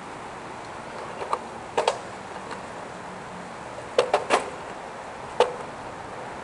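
Steady rush of wind and road noise from a bicycle ride, broken by sharp knocks and rattles: a couple after about a second, a quick run of three about four seconds in, and one more a second later.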